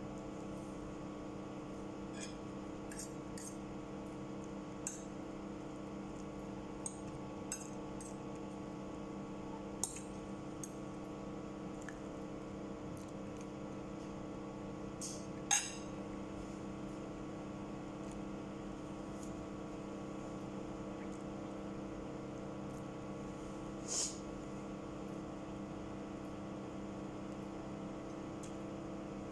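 Steady hum in the background, with scattered short clinks of a fork against a plate while eating; one sharper clink about halfway through.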